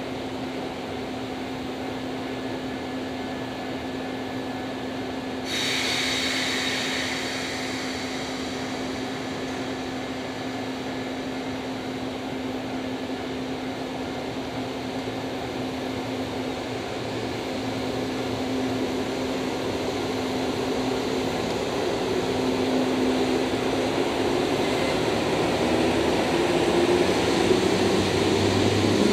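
EF65 electric locomotive running light, humming steadily at a standstill, with a sudden hiss about five seconds in. It then grows louder as it pulls away, with a rising whine near the end as it gathers speed.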